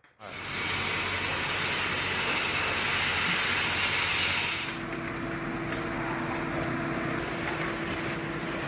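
Mini excavator's engine running with a loud, hissing machine noise. About five seconds in it drops to a quieter steady machine noise carrying a faint steady hum.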